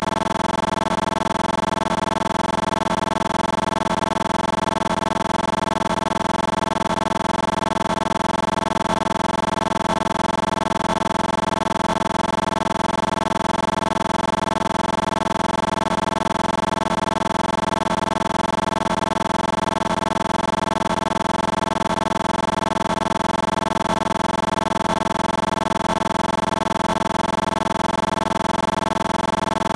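A loud, steady electronic buzz made of several fixed pitches, holding completely unchanged throughout, like a stuck or looping digital audio glitch rather than any real-world source.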